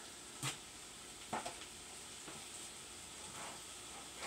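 Corned beef hash sizzling quietly in a skillet turned up to high heat, with a few brief knocks of utensils against the pan or plate, the clearest about half a second and a second and a half in.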